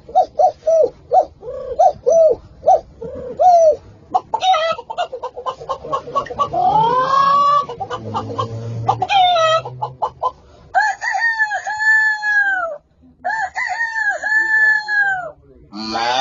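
A person imitating a chicken with his voice: a run of short repeated clucks, quicker cackling and a rising call, then two long rooster-crow calls in the second half.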